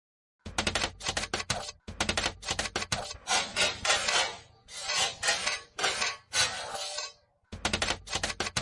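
Chalk on a chalkboard, an anime sound effect replayed slowed down: quick runs of sharp taps from chalk strokes mixed with several short scratchy scrapes of writing, with a brief pause near the end.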